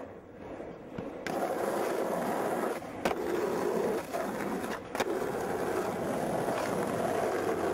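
Skateboard wheels rolling on an asphalt road. A steady rolling noise starts a little over a second in, with a few sharp clicks along the way.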